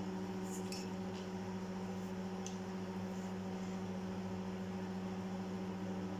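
Microwave oven running on high with a steady hum, with a few faint ticks in the first couple of seconds.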